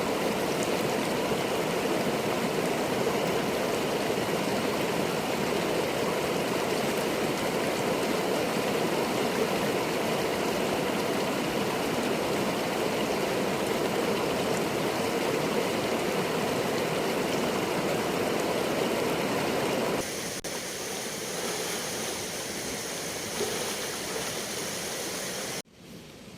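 River flowing with a steady rush of water. About twenty seconds in it drops to a quieter, hissier rush, and just before the end it falls suddenly to a faint hiss.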